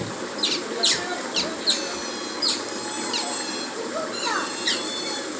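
Asian small-clawed otters giving a run of short, high chirps, each falling steeply in pitch, repeated irregularly several times.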